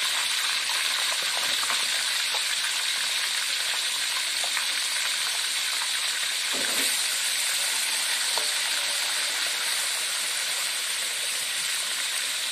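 Whole fish deep-frying in hot oil in an aluminium wok, a steady sizzle with small crackles and spits. A little past the middle a metal spatula briefly scrapes in the pan as it moves the fish.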